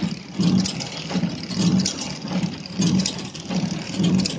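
Flow-wrap packaging machine running in a steady cycle: a hum that swells and a click about every two-thirds of a second, one pulse for each pack wrapped and sealed.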